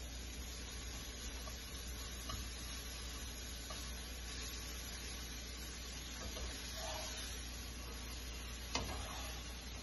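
Food frying in hot oil: a steady sizzle, with a few light clicks and one sharper knock near the end.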